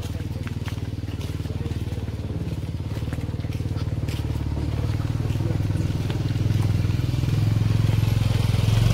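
Motorcycle engine running steadily, growing louder toward the end.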